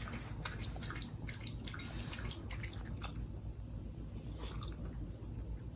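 A small pet chewing food: a run of irregular soft clicks and crunches from its mouth and teeth.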